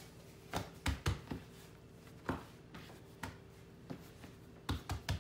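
Hands patting and pressing a round of bread dough flat on a marble countertop, then folding it. The hands make irregular soft thuds, several close together in the first second and a half and then more spaced out.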